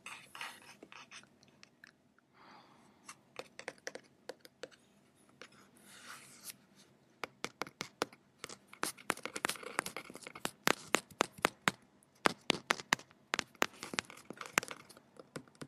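Fingertips tapping, with some scratching, for a simulated ASMR scalp massage. Quick, irregular crisp taps, sparse at first, then denser and louder from about seven seconds in.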